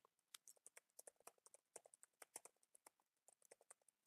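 Typing on a computer keyboard: a quick, irregular run of faint keystrokes.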